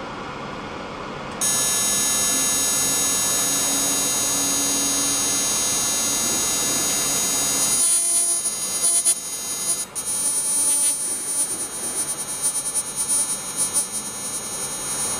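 Spark probe of a PMI-MASTER Pro mobile optical emission spectrometer sparking on an aluminium part to analyse the alloy: a loud, steady, high buzz starts about a second and a half in. About halfway through it turns rough and uneven, then cuts off at the very end.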